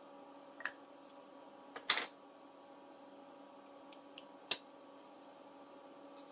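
Pens and a highlighter marker being put down and picked up on a desk: a few light clicks and taps, the loudest pair about two seconds in and another near four and a half seconds, over a steady electrical hum.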